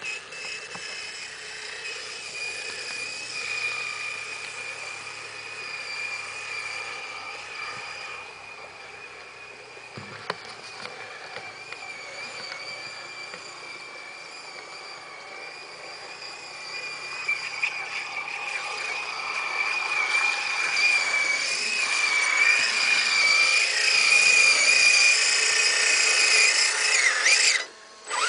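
Electric motor and gearbox of a Kyosho Rock Force 2.2 radio-controlled scale crawler whining steadily as it drives through mud and water. The whine grows louder over the last ten seconds as the truck comes close, then cuts off suddenly near the end.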